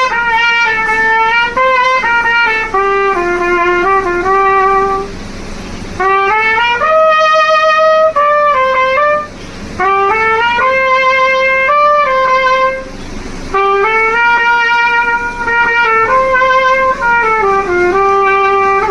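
A Diplomat brass trumpet playing a solo melody in three phrases of held and stepping notes, with short breaks about five and thirteen seconds in.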